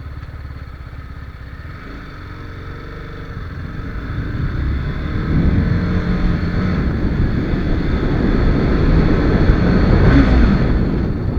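TVS Apache RR 310's single-cylinder 312 cc engine running under way, growing steadily louder over several seconds as the bike speeds up, then easing off near the end.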